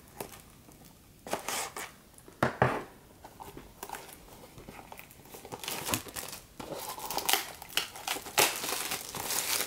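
Clear plastic shrink wrap on a cardboard card box being slit with a utility knife and peeled off by hand, crinkling and tearing in short, irregular crackles that come thicker in the second half.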